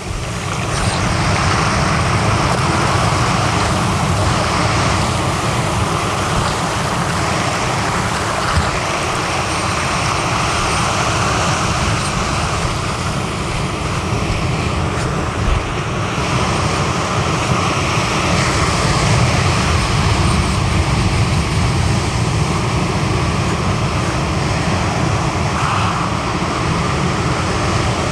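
Surf breaking and washing up the shore, with wind buffeting the microphone: a loud, steady rush with no pauses.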